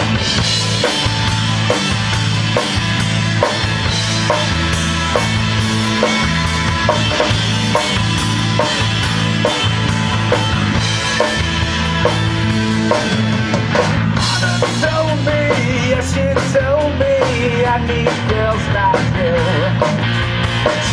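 Rock band playing live and loud, with drum kit and electric guitar. A higher, wavering melody line joins about two-thirds of the way in.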